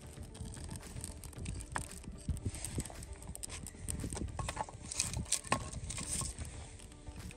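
Irregular knocks, clatter and crackle of campfire wood being handled and the fire being built, with a cluster of sharper clicks in the middle.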